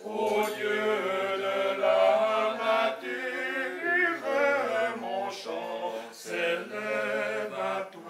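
A small group of men singing together unaccompanied, in harmony, with a low note held for long stretches beneath the moving voices.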